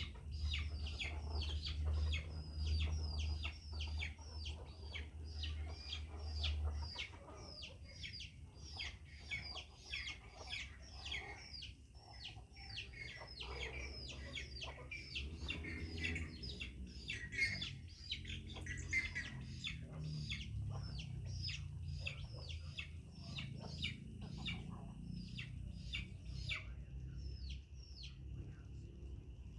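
Chickens calling nonstop: a rapid run of short, high, falling peeps, several a second, with a low hum underneath that stops about seven seconds in.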